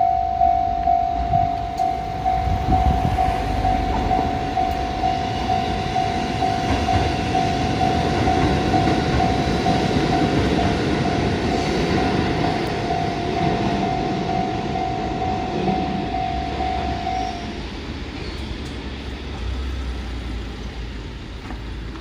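Japanese level-crossing warning bell ringing in a steady rapid beat as a two-car Kotoden 1200-series electric train rumbles over the crossing. The bell stops about three quarters of the way through, and the train's rumble fades away.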